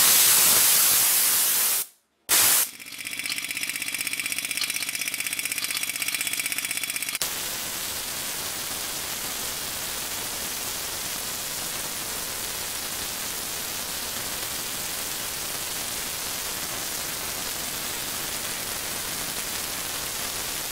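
Compressed air hissing out of the tank for about two seconds, fading as it goes, to drop the pressure to the switch's cut-in point. After a brief break the homemade compressor, driven by a four-stroke grass-cutter engine, runs with a steady pitched drone. From about seven seconds in, a steady, even rushing noise takes over.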